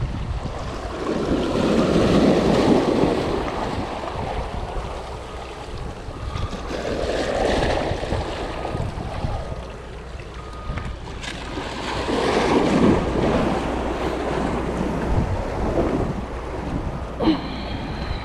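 Small waves washing in over jetty rocks, surging about every five seconds, with wind rumbling on the microphone. A brief sharp sound comes near the end.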